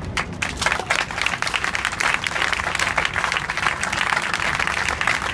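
Audience applauding, breaking out all at once as the percussion ensemble's final chord stops and holding steady throughout.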